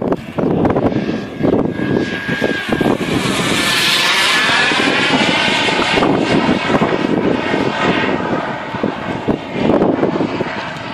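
Turbine-powered RC jet (Falcon 120 with a KingTech K-80 turbine) flying past: a loud rushing whine that swells about four seconds in and sweeps in pitch as it passes, then eases off. Wind buffets the microphone throughout.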